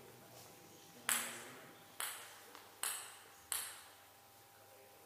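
Table tennis ball bouncing with four sharp, light clicks, a little closer together each time, each followed by a short echo in the hall.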